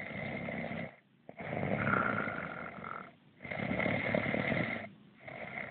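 A sleeping person snoring: four snores in a row, each a little over a second long, with short pauses between.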